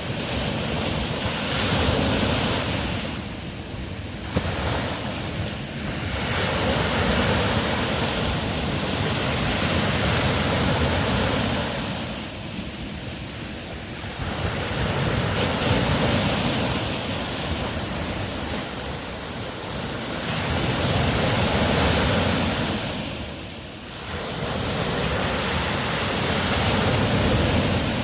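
Ocean waves surging in and receding, a steady wash of surf that swells and fades every five or six seconds.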